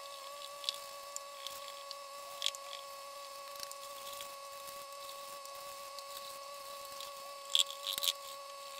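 A steady hum with a few faint, light clicks and scratches scattered through it, a small cluster of them near the end.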